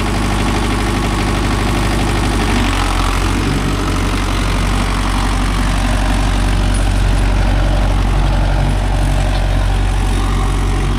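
Mahindra Yuvo Tech+ 585 4WD tractor's diesel engine running steadily and loud, close to the microphone, with a slight change in its note about three seconds in.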